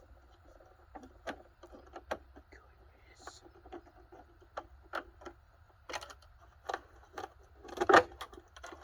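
Irregular light clicks and knocks of metal and plastic parts being handled as a dehumidifier is taken apart, with a louder clatter of knocks near the end.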